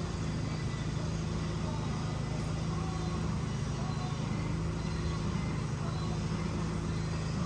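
A steady low hum, unchanging throughout, with no distinct knocks or events.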